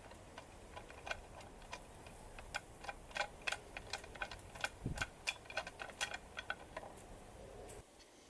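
Light, irregular metallic clicks and taps, a few a second, as a chainsaw's clutch cover nuts are worked loose and the cover and small parts are handled.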